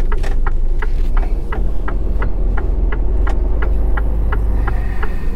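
Truck's diesel engine running low and steady inside the cab, with the turn-signal indicator ticking evenly, about three ticks a second, as the truck turns.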